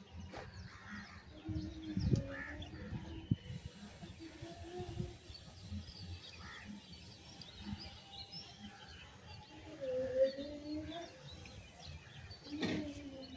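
Small birds chirping and twittering in the background, many short high calls scattered throughout, over outdoor ambience.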